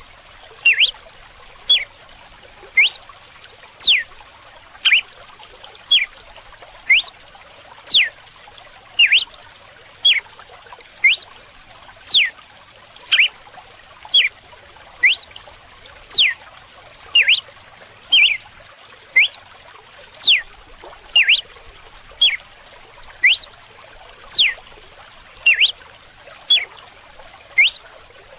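Red-cowled cardinal (galo-de-campina) singing its 'whip' song: sharp whistled notes, each sweeping quickly up or down, repeated about once a second over a steady sound of running water.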